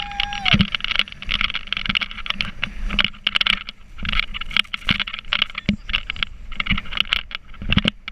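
Wind and water spray buffeting the camera on a fast-towed inflatable sofa boat, with rapid irregular thumps and slaps as it bounces over the waves. A steady high tone cuts off just under a second in.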